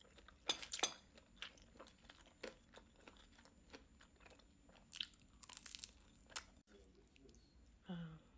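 Close-up chewing of pan-fried potstickers: wet mouth sounds with irregular crisp crunches, loudest in a cluster about half a second in and again around five seconds in. A brief low hum near the end.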